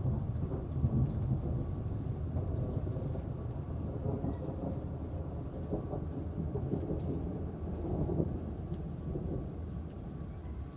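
Rolling thunder rumbling low and continuously over steady rain. It swells near the start and again about eight seconds in, then eases off toward the end.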